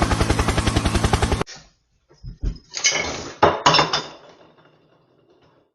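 A fast, even chopping pulse cuts off abruptly about a second and a half in. After a short gap come several loud clattering crashes, as of hard objects knocked over and clinking, which die away to quiet.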